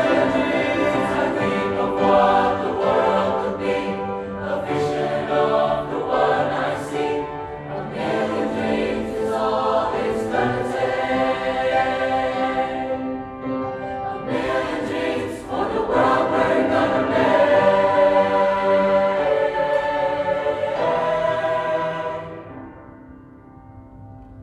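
High-school choir singing in several voice parts, with a softer passage about halfway through; the singing ends on a held chord that dies away near the end.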